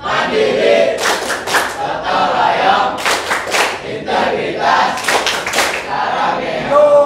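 A class of students singing together while clapping along, with three quick claps about every two seconds.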